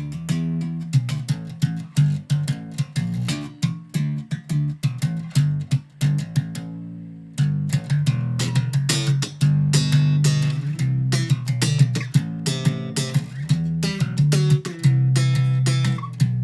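Background music led by a plucked guitar over a bass line, with quick picked notes and a short break about seven seconds in.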